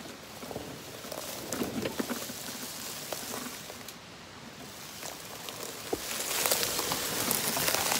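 Knobby tires of a lifted EZGO TXT 48-volt electric golf cart crunching and crackling over dry fallen leaves and twigs as it climbs a steep trail, growing louder as it passes close about six seconds in.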